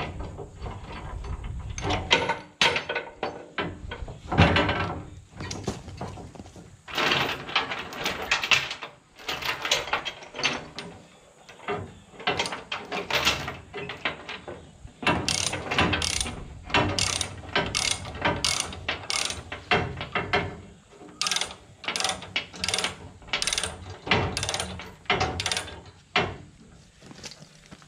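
Ratchet chain binder being cranked tight, its pawl clicking in repeated strokes as the handle is worked back and forth, tensioning a chain that pulls a bent bush hog deck back into line. In the second half the strokes come about one every 0.7 seconds.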